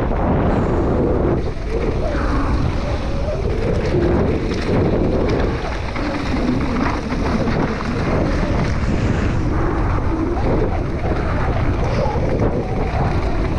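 Wind rushing over the microphone of a camera on a mountain bike descending a gravel trail, with the tyres rolling over loose gravel.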